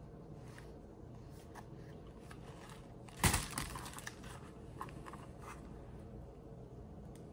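Amazon shipping mailer being torn and handled: a short, loud rip about three seconds in, then light crinkling and small taps as a box of press-on nails is pulled out.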